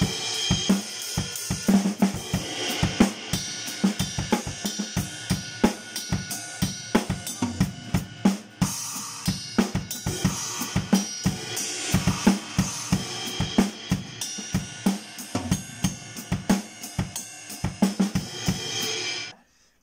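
Acoustic drum kit played with sticks: a busy groove of bass drum, snare and hi-hat with cymbal crashes, cutting off abruptly near the end.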